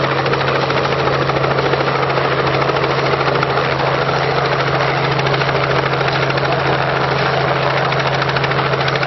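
Light helicopter running nearby: a loud, steady engine and rotor drone with a fast, even blade beat.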